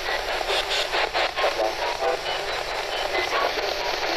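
Handheld spirit box sweeping through radio stations: a steady hiss of static, chopped by rapid clicks and brief beeping tones.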